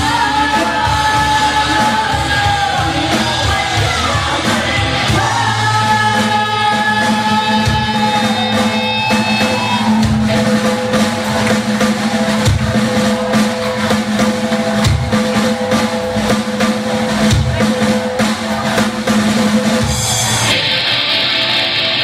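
Live rock band playing loudly: drum kit, electric guitars and bass, with a singer's held, bending notes in the first half and a long steady low note under drum hits in the second. Near the end the sound cuts abruptly to a different song.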